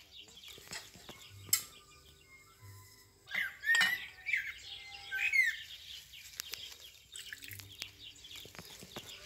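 A metal spoon clinking and knocking against a steel pot and ceramic plates as stuffed peppers are dished up, with one sharper knock about a second and a half in. For about two seconds in the middle, a bird chirps several times in short sweeping calls.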